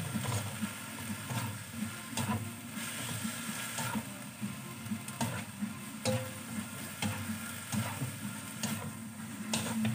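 Kway teow noodles sizzling as they stir-fry in a wok, with occasional knocks and scrapes of a spatula against the pan.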